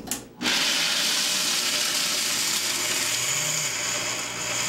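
Vitamix blender grinding raw cashews into a meal: a click, then the motor starts about half a second in and runs steadily, the nuts whirling in the jar.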